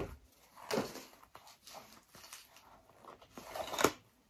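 Paper packing stuffing rustling as it is pulled out of a leather bag: a few short rustles and scrapes, the longest and loudest near the end.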